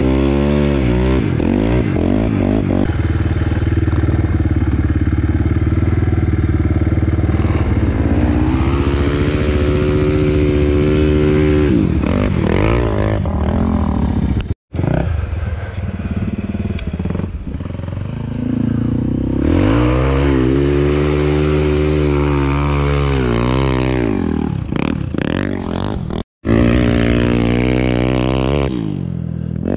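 Sport quad's single-cylinder engine being ridden hard, revs repeatedly climbing and dropping back as the throttle is worked. Two sudden breaks about 15 and 26 seconds in, where the sound cuts out for an instant.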